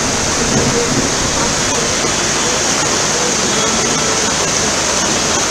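Floodwater rushing along a flooded street: a steady, loud, unbroken wash of moving water.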